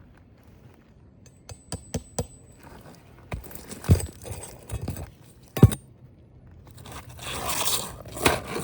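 Asphalt roofing shingle scraping against the shingles around it as it is worked into place. There are scattered clicks and two sharp knocks midway, then a longer, louder scrape near the end.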